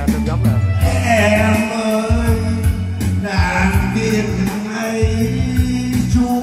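A man singing a Vietnamese ballad karaoke-style into a microphone over a backing track with a steady bass line, all played through a loudspeaker system.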